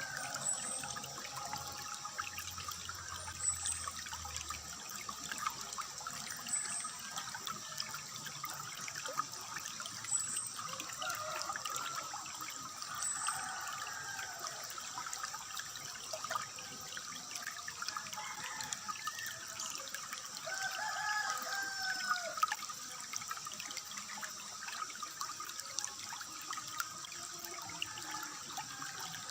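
Water trickling steadily, with birds chirping over it: a short high note repeating about every three seconds in the first half, and lower whistled calls that rise and fall.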